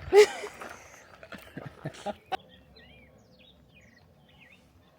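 A brief loud voice at the start and a few sharp knocks, then faint bird chirps.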